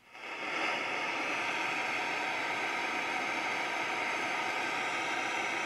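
Sanyo Campanetta radio switched on, its speaker giving a steady hiss of static with no station tuned in. The hiss comes up over the first half second, then holds even.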